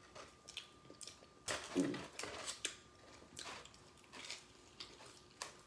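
Eating sounds: scattered soft smacks, clicks and rustles of chewing and handling stuffed cheesy bread, with a brief voiced murmur about two seconds in.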